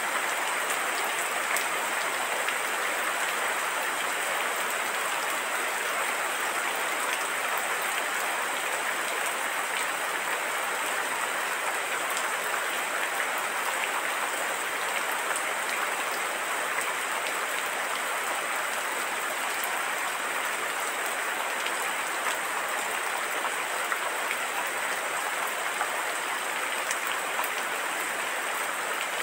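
Steady heavy rain falling, a constant even hiss with scattered drop ticks.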